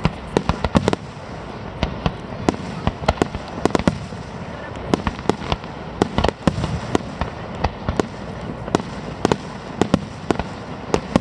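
Fireworks display: a dense, irregular run of sharp bangs and crackling reports, several a second at times, over a continuous rumble of further explosions.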